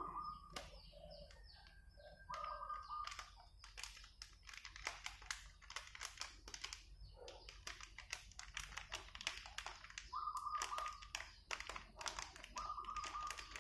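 A metal spoon clicks and scrapes against a rice-cooker pot while a plastic spice sachet crinkles in the hands, in quick irregular clicks and rustles. Four short steady whistle-like tones, each under a second, sound in the background.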